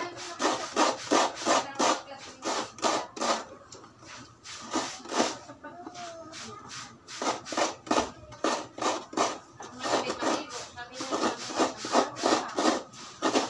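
A halved coconut scraped hard against a coconut grater, shredding the meat. Repeated raking strokes at about three a second, with a couple of short pauses.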